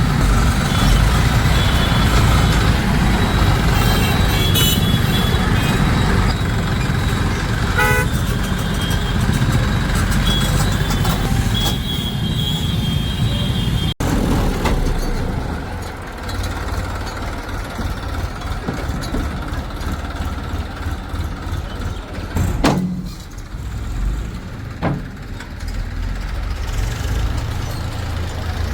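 Heavy diesel machinery engines running under load, with a high horn-like tone sounding a few times in the first half. About halfway it cuts abruptly to a quieter engine sound, broken by two sharp knocks.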